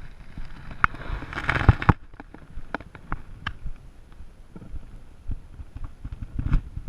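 Mountain bike rattling and knocking as it rolls over a rough trail, with irregular sharp clicks and a short burst of rushing noise about a second and a half in.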